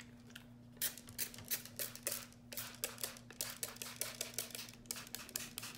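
Plastic trigger spray bottle pumped rapidly, a quick series of short spritzes, about two or three a second, spraying water.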